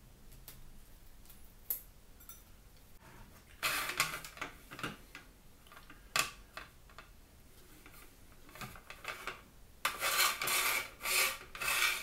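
A hard-boiled egg being peeled by hand, with small crackles and scratches of the shell, then a plastic egg slicer being handled and pressed down. The slicer gives a run of rough rubbing and clacking bursts near the end, the loudest sounds here.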